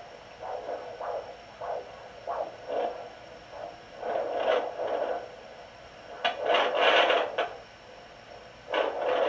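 Sonoline B pocket fetal doppler speaker giving out whooshing, scraping noise as its gelled probe slides over the belly in search of the fetal heartbeat. Short swishes come under a second apart at first, then longer, louder swishes about halfway through and again near the end.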